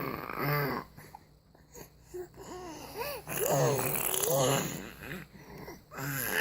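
A baby babbling: about five short vocal sounds in a row, each sliding up and down in pitch, with short quiet breaths between them.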